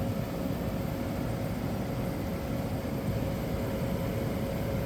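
1985 White Westinghouse 5900 BTU air conditioner running and cooling: steady fan airflow and compressor hum, with a thin steady tone running through it.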